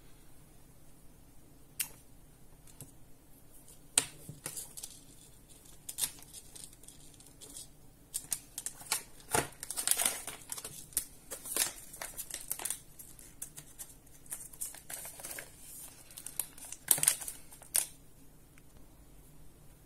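Hands handling a plastic multi-port USB charger, a USB cable and a small LED keychain light: scattered clicks and taps as connectors are plugged in and the pieces are picked up and set down, with some crinkling. The handling is busiest in the middle and again near the end.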